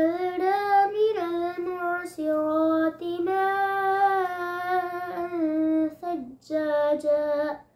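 A boy's voice reciting the Quran in a melodic, chanted style, holding long notes with a few short breaks for breath.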